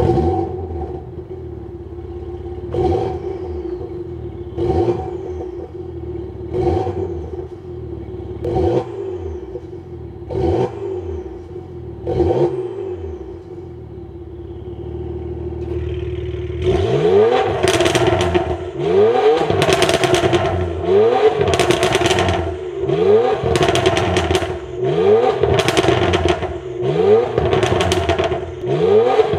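Porsche Macan S 3.0-litre turbocharged V6 through a Stone catalytic downpipe and valved catback exhaust, idling and blipped in short revs about every two seconds with the exhaust valves closed. About 17 seconds in, the valves are open in sport mode: the exhaust is louder, and the revs come quicker, about once a second.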